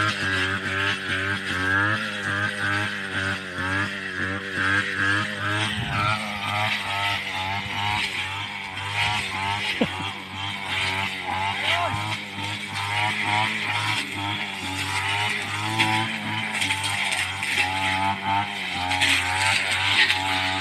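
Small vehicle engine running steadily at low speed, its pitch wavering slightly up and down.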